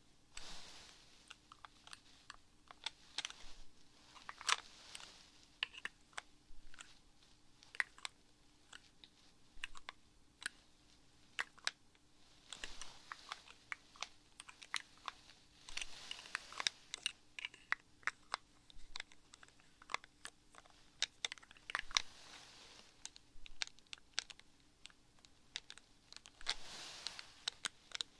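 Close-miked ASMR handling sounds: irregular sharp clicks and taps, several a second, mixed with brief crinkling rustles.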